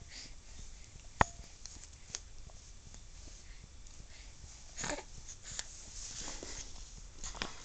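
Quiet sounds of a baby being spoon-fed pureed carrots: a few sharp clicks, the loudest about a second in, and a soft breathy mouth noise near five seconds.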